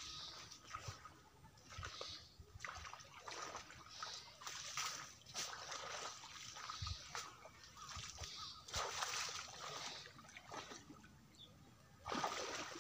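Shallow water splashing and sloshing as a person wades knee-deep and works his hands in it, in irregular bursts, with a louder run of splashing near the end as he strides through the water.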